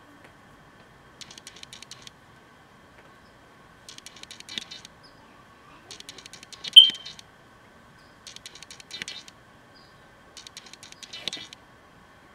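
Soft bristles of a powder brush sweeping across the cheek in short strokes of blush, a scratchy swish about every two seconds, with one sharper tick about two-thirds of the way through.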